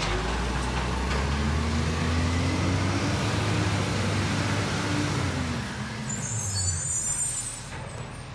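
Side-loader garbage truck's diesel engine pulling away, the revs rising and then falling back, and the engine growing fainter as the truck moves off near the end.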